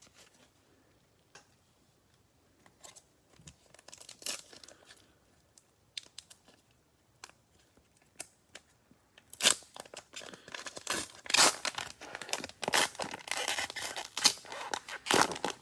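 Cellophane wrapper of a Mosaic football cello pack being torn open and crinkled, loud and crackly through the last six seconds, after several quiet seconds of light clicks from cards being handled.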